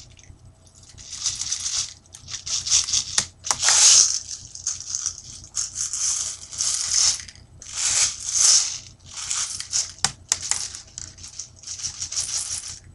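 Plastic airsoft pellets rattling in repeated bursts as they are poured and shaken into a party popper, with a couple of sharp clicks.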